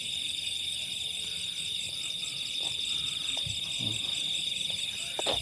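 Steady night chorus of trilling insects: a continuous high-pitched trill with faster pulsing layers above it. A few faint knocks underneath, with a brief sharper one near the end.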